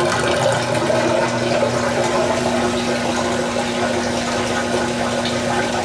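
GE washing machine's drain pump running with a steady hum while water rushes out through the drain hose; the pump, freshly cleared of a lodged sock, is draining freely.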